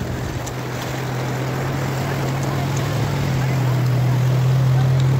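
Motorcycle engine running with a steady low hum, growing louder over the first few seconds as it rides through shallow floodwater, over a constant wash of water noise.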